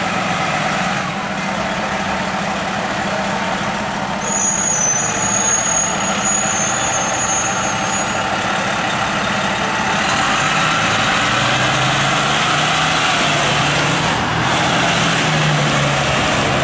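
Heavy Pierce fire truck's diesel engine running steadily with street noise, getting louder about ten seconds in; a brief high thin tone sounds about four seconds in.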